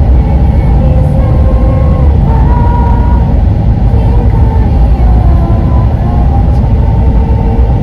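Road and engine noise inside a moving car's cabin: a loud, steady low rumble.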